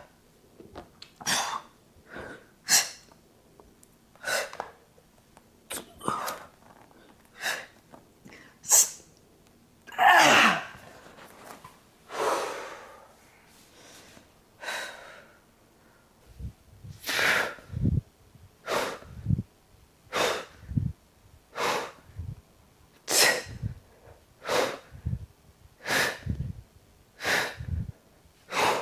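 A person breathing out sharply and forcefully in a series of short bursts, about one every second or so. From about halfway on, a low thump sits under many of the breaths.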